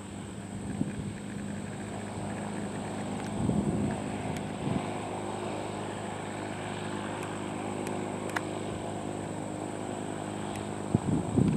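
Light propeller airplane's engine and propeller running steadily on approach to landing. Wind gusts buffet the microphone about three and a half seconds in and again near the end.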